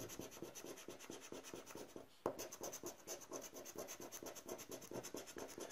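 Faint, fast scratching of the coating off a Rubbelstar scratch-off lottery ticket with the edge of a flat scraper strip, about eight back-and-forth strokes a second, with a short break about two seconds in.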